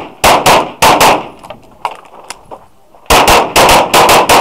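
Glock 34 9 mm pistol fired in quick pairs: two double taps in the first second, then, after a pause of about two seconds, three more double taps near the end. The shots are loud and close, from the shooter's own gun, firing light 147-grain handloads.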